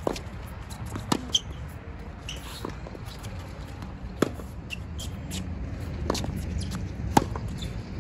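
Tennis rally on a hard court: sharp pops of the ball struck by strings and bouncing, a few seconds apart, with the loudest hits about a second in and about seven seconds in from the racket of the nearer player. A steady low rumble runs underneath.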